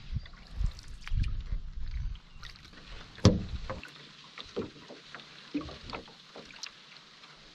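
Canoe being paddled: a low rumble for the first few seconds, then one sharp hollow knock against the canoe a little over three seconds in, followed by several lighter knocks.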